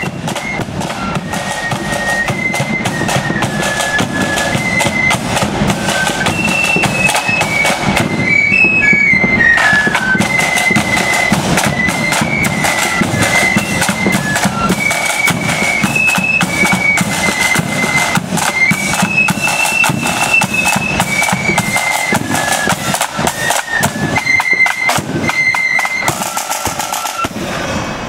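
Marching flute band playing a tune: the flutes carry a high melody in unison over a steady beat of side drums and a bass drum.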